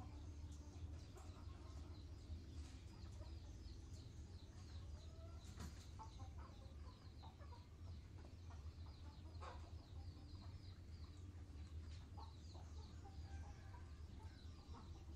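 Bantam chickens clucking quietly at intervals, over a steady low rumble and quick high chirping in the background.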